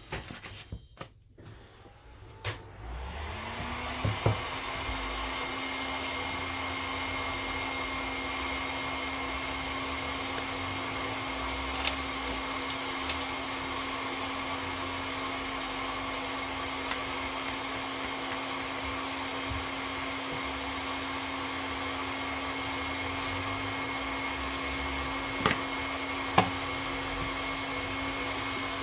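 Heat gun switched on about two and a half seconds in: its motor spins up and then blows steadily, as used to soften the adhesive holding a Samsung Galaxy S8 screen. A few light clicks and taps sound over it.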